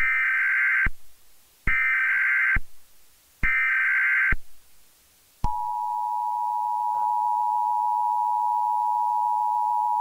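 Emergency Alert System SAME header: three short bursts of buzzy digital data tones. About five and a half seconds in, the steady two-tone EAS attention signal follows and holds.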